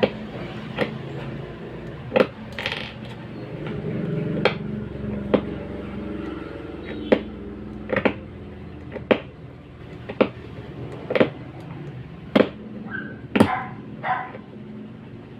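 A series of short, sharp clicks or taps, roughly one a second, from small hard objects being handled.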